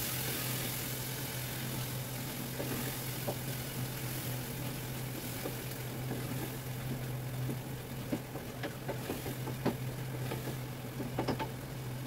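A wooden spoon stirring tomato gravy in a pot on a portable gas burner, with light taps and scrapes against the pot, most of them in the second half. Under it a steady low hum and hiss.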